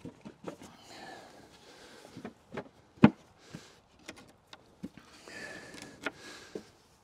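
Scattered knocks and clicks of wooden portable jump-ramp pieces being handled and slotted together, with one sharp knock about three seconds in.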